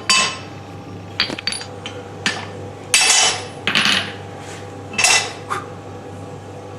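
Hand hammer and tools striking hot stainless steel at the anvil, about seven irregular metallic blows with a short ring after each, while the crucifix figure's face and eye sockets are shaped. A steady low hum runs underneath.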